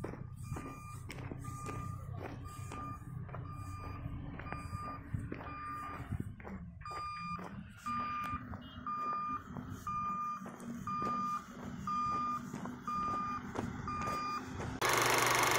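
Reversing alarm of a construction vehicle beeping steadily about twice a second over its engine running, with footsteps crunching on loose gravel. Near the end it cuts suddenly to a louder, steady noise.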